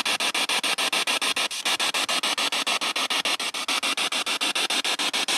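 Spirit box sweeping rapidly through radio stations: a steady hiss of static chopped into short pulses about eight times a second.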